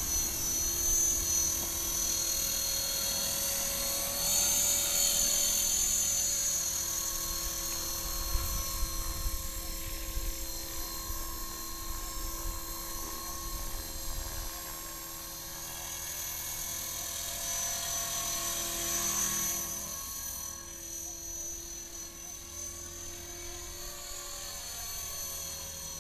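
450-size electric RC helicopter in flight: the steady high whine of its motor and gears with the rotor whirring, the pitch shifting slightly as it manoeuvres. A low rumble runs under it during the first half.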